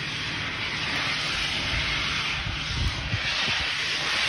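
Steam locomotive 73082 Camelot, a BR Standard Class 5 4-6-0, working with a steady rushing hiss of steam. A few low chuffs come through about two and a half to three seconds in.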